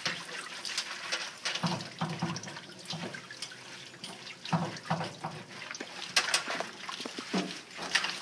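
Hands scrubbing a standard poodle's wet, shampoo-lathered coat in a bathing tub: irregular wet squishing and splashing, with dripping water.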